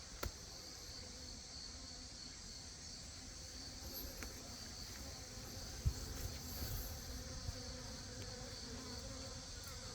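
Native Korean honeybees (Asian honeybees) buzzing in a faint steady hum around their hive, over a steady high-pitched insect trill; a single soft thump about six seconds in.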